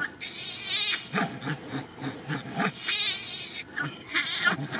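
Female macaque calling loudly for help in distress: two long harsh screams about two and a half seconds apart, with shorter calls between and after them.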